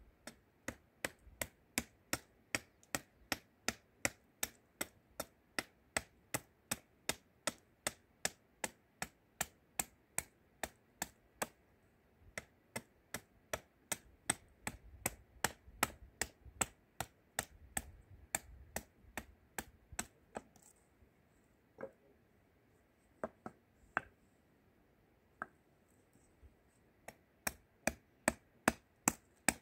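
Hatchet chopping a wooden spoon blank held upright on a wooden block: quick, regular sharp chops about two or three a second, thinning to a few scattered strikes about two-thirds in, then quickening again near the end.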